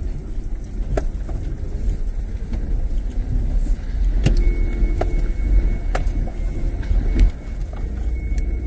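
A vehicle driving slowly over a rough, wet dirt track: a steady deep rumble from the ride, broken by a few sharp knocks and clicks as the wheels and suspension take rocks and ruts.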